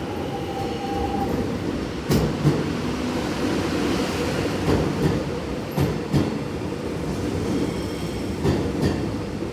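Electric suburban train moving through a station, a steady rumble broken by irregular clacks as the wheels pass over rail joints and points. A thin high squeal sounds for about the first second.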